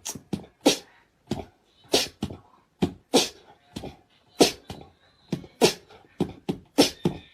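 A pet animal making a rapid series of short, sharp, noisy sounds, about two a second, some louder than others.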